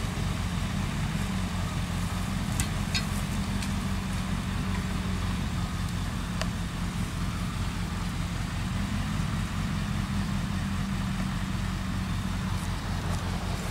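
Diesel engine of a forestry forwarder running steadily at idle, with a few faint clicks over it.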